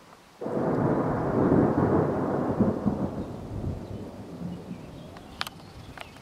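Thunder: a loud clap that starts abruptly about half a second in, then rumbles and slowly fades over several seconds.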